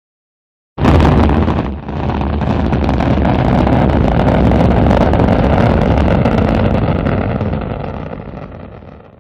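Rocket launch sound effect: a deep, loud rumble that starts abruptly about a second in, holds steady, then fades out near the end.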